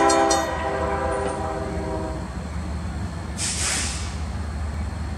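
Diesel locomotive air horn on an approaching freight train, sounding a loud multi-note chord that ends about two seconds in, over a steady low rumble: the warning for the grade crossing. A short burst of hiss comes just before four seconds in.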